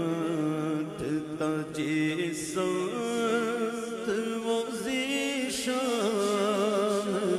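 A man's solo voice singing a naat, Urdu devotional poetry, in long held notes that waver and glide.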